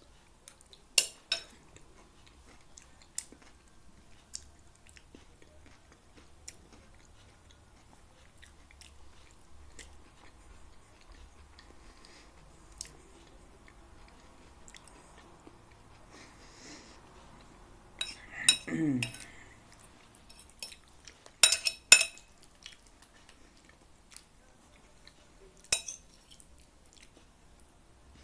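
Metal fork clinking and scraping against a plate, with quiet chewing between the clinks. There are a few single sharp clinks, a cluster about two-thirds of the way through, which is the loudest part, and a brief low falling vocal sound just before that cluster.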